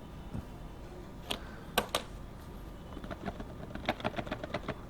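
Sharp clicks from a utility knife (box cutter) being worked on the phone box's seal: a few single clicks in the first two seconds, then a quick run of clicks from about three seconds in.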